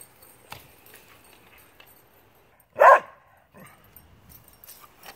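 A small dog barking once, a single short bark about three seconds in.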